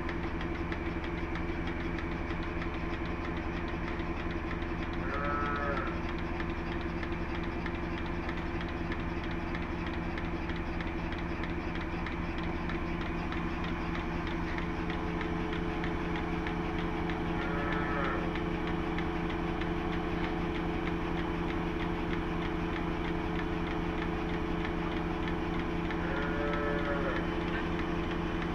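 Cattle mooing three times, short arched calls spread across the stretch, over the steady hum of a running engine or farm machine.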